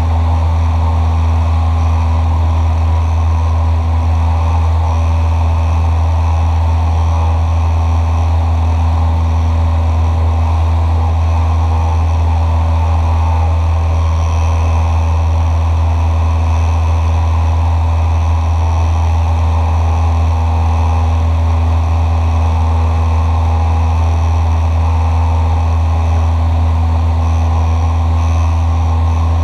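Cessna 172SP's four-cylinder Lycoming engine and propeller droning steadily in flight, heard from inside the cockpit.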